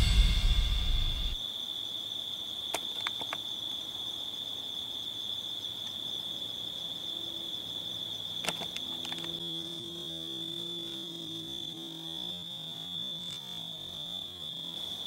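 Steady high trill of night insects, with a few faint clicks about three and nine seconds in. Rock music fades out in the first second or so.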